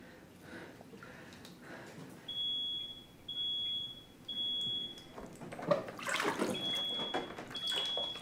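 Smoke alarm beeping: a high steady tone in long beeps about once a second, which starts a couple of seconds in. Bathwater splashes loudly midway, breaking the beeps, as a person shifts in a bathtub.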